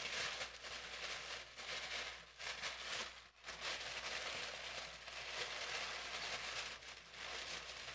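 Rustling and crinkling of a trading-card box's packaging and cards being handled and opened, in uneven stretches with brief breaks.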